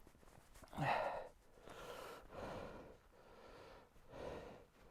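A person breathing heavily close to the microphone: four or five soft exhales and sniffs, the loudest about a second in.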